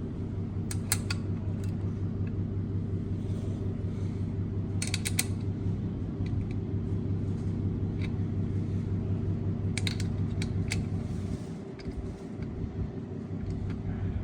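Small metal parts clicking a few times as the pawls (dogs) are fitted into an ATV recoil starter, over a steady low hum.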